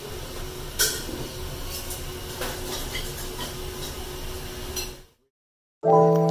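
Ramen-shop room noise: a steady low hum with a few sharp clinks of tableware, the loudest about a second in. It fades out about five seconds in, and mallet-percussion music starts near the end.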